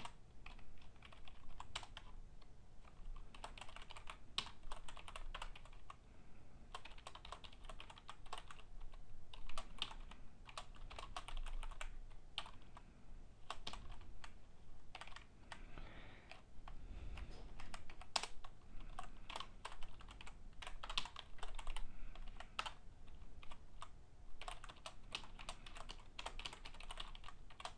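Computer keyboard being typed on: irregular runs of quick keystroke clicks with short pauses between them.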